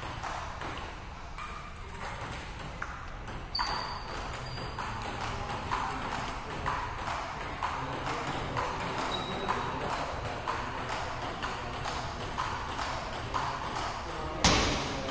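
Table tennis ball clicking off paddles and table in quick back-and-forth rallies, about two hits a second, with one much louder knock near the end.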